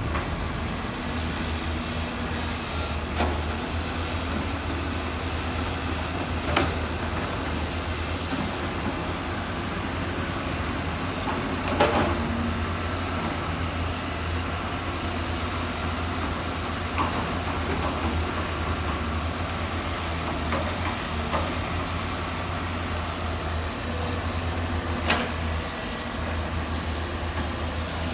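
Heavy diesel construction machinery running steadily with a constant low engine drone, with a few scattered sharp metallic clanks, the loudest about twelve seconds in.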